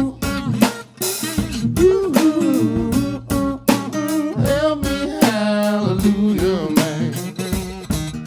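Blues band playing: guitar with bending notes over a drum kit.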